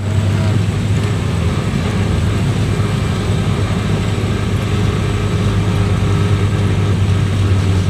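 Car engine running steadily while driving, a loud low drone that cuts in suddenly.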